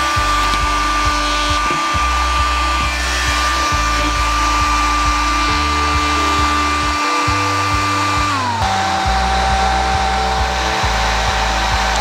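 Syska HD1610 hair dryer running on its cool-air setting with a steady motor whine. About eight and a half seconds in, the pitch glides down and settles lower as the motor drops to a slower speed. Background music plays underneath.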